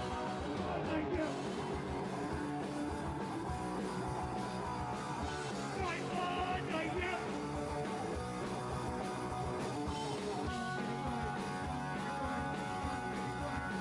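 Hardcore punk band playing live: electric guitars, bass and drums, with the guitar part changing about ten seconds in.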